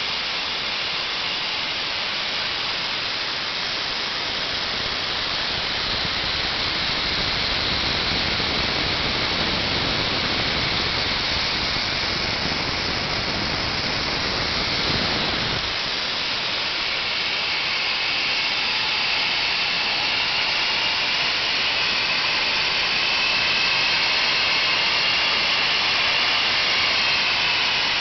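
Homemade turbocharger gas turbine running, with a loud, steady jet-like rush and hiss. A low rumble mixed in through the middle cuts off about halfway. From then on a high whine rises slightly as the turbine spools.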